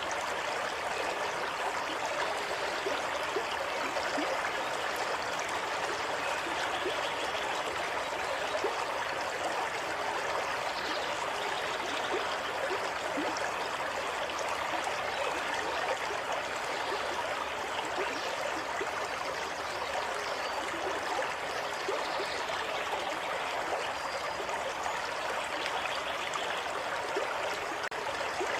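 Water running steadily over rocks in a stream, an even babbling and trickling flow.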